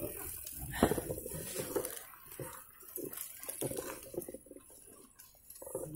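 Mountain bike riding over a rough dirt trail: tyre noise on the soil with irregular knocks and rattles from the bike, easing off for a second or so shortly before the end.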